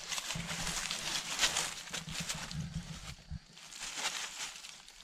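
Rustling and crackling of leafy bush branches and dry fallen leaves as goats browse on a bush, in uneven bursts that peak about a second and a half in and again near four seconds, with a low rumble through the first three seconds or so.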